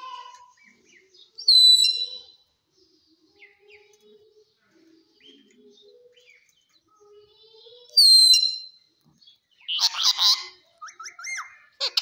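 Rose-ringed parakeet (ringneck) giving two loud, shrill screeches about six seconds apart. Near the end come a burst of scratchy chatter and squeaky, swooping whistled notes.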